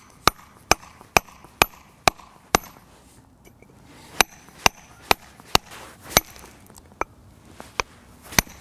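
Club hammer striking a stone mason's chisel held upright on a stone: sharp, separate blows about two a second, with a short pause a little before halfway. The chisel is cutting the stone along a scribed line.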